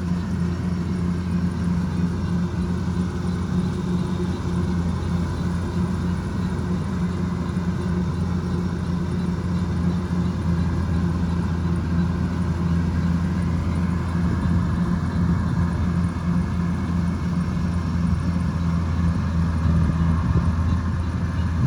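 Kubota DC105X combine harvester running steadily, a constant low engine hum with machinery noise above it.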